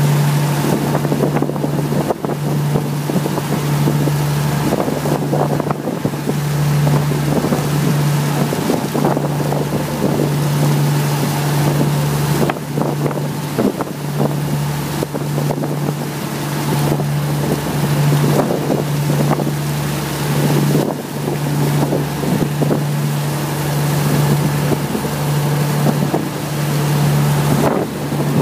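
Boat engine running steadily with a low drone, under wind buffeting the microphone and the rush and splash of the boat's wake.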